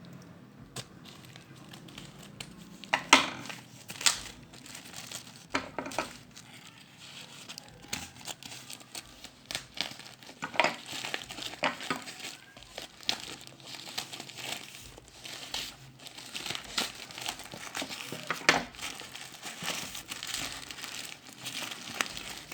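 Packaging being handled and unwrapped, crinkling and rustling irregularly with a few sharper crackles, as a digital blood pressure monitor is unboxed.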